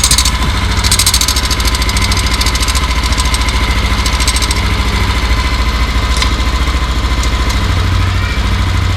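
Yamaha Aerox 155's single-cylinder four-stroke engine idling steadily through a JVT V3 adjustable aftermarket exhaust, with the pipe being set to its quietest configuration.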